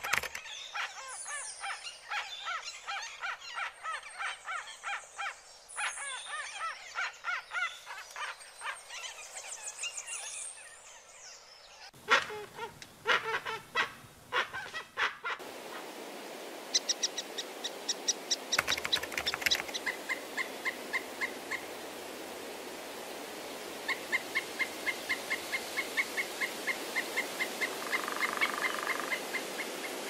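Birds chirping and trilling in quick, dense runs of notes, breaking off abruptly about twelve seconds in. From about halfway a steady waterfall rush sets in, over which a bird repeats a short, even note about three times a second.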